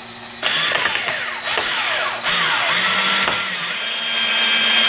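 Power drill driving a screw into a wooden gusset block. The motor speed rises and falls as the trigger is worked, with a brief letup about two seconds in.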